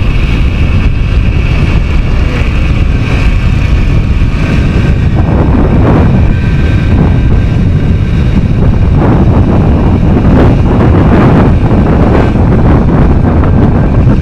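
Heavy wind buffeting on a camera microphone while riding a Yamaha DT100, a steady low rumble of rushing air with the bike's two-stroke single running beneath it.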